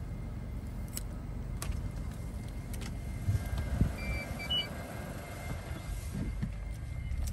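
Car moving slowly, a low steady road and engine rumble, with a few faint clicks and a brief faint high tone about four seconds in.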